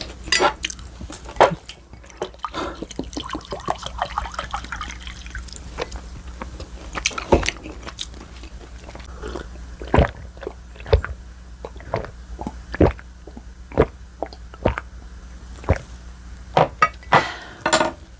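Close-miked wet chewing and mouth sounds of someone eating, with sharp smacking clicks every second or so.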